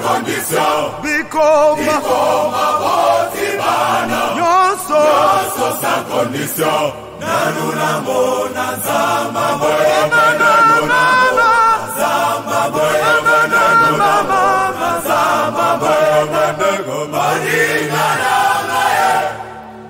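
Gospel choir of men singing a Lingala worship song, a wavering lead voice over the sustained group voices, with steady low accompanying notes.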